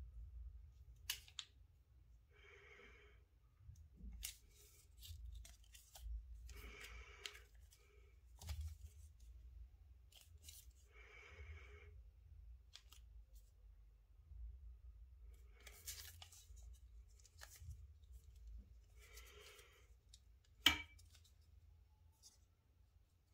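Quiet handling noise of a small USB-C adapter being turned over in the hands: faint clicks and rubs, with one sharper click near the end. Soft breaths come about every four seconds.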